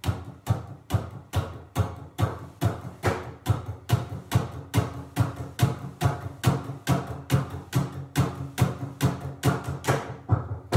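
Gretsch hollow-body electric guitar played in a steady rhythm of sharp, percussive muted strums, about two and a half a second, with low notes ringing between the strikes.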